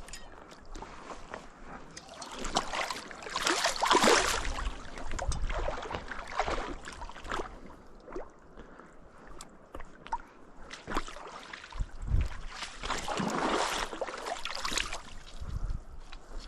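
Irregular splashing and sloshing of river water, with scattered clicks and two louder spells about four and thirteen seconds in.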